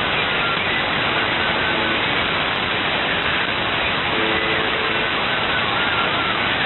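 Shortwave radio static tuned to the UVB-76 'Buzzer' frequency: a steady hiss with faint wavering whistles through it. The station's buzz shows faintly about four seconds in, nearly buried in the noise.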